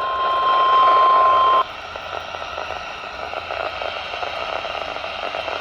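NOAA Weather Radio 1050 Hz warning alarm tone: one steady high-pitched beep that cuts off sharply after about a second and a half. It is the signal that an emergency warning broadcast follows. After it comes a steady hiss of radio static.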